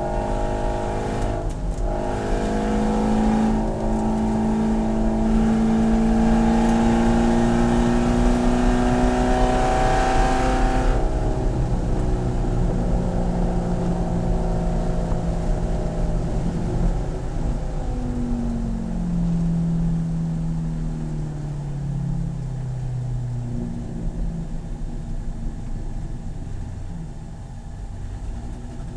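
Corvette C7 race car's V8 engine pulling hard under full throttle, its note climbing steadily for about eleven seconds. The throttle then shuts abruptly, and the engine note falls in steps as the car slows, dropping again around twenty seconds in before running quieter near the end.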